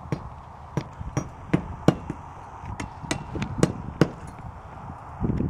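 Hammer blows on a shingle roof during roof repair: about nine sharp knocks at an uneven pace, roughly two a second, that stop about four seconds in.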